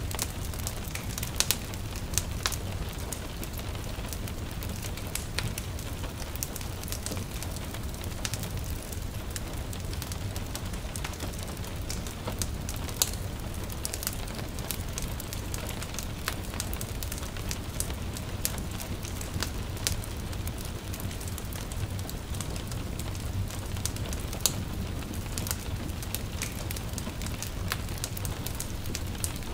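Wood fire crackling, with irregular sharp pops and snaps over a steady low rumble, and light rain as a soft background hiss.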